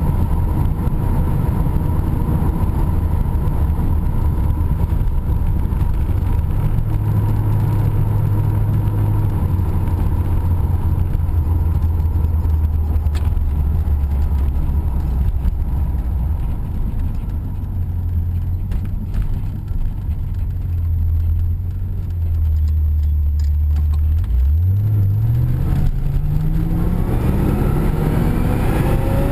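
1980 Corvette's 305 V8 heard from inside the cabin while driving. The engine hums steadily, eases off and quietens somewhat past the middle, then accelerates near the end, its pitch rising steadily.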